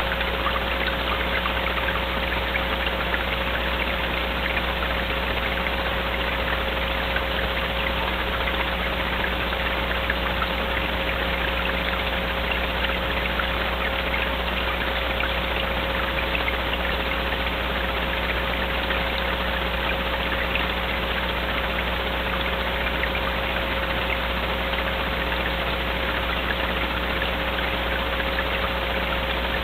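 Steady hum and hiss with a constant mid-pitched whine, unchanging throughout: background noise picked up by a night-time wildlife camera's microphone, with no animal calls.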